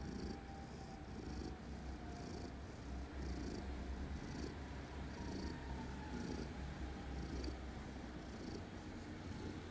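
Domestic cat purring steadily in a low rumble, with a soft hiss about once a second.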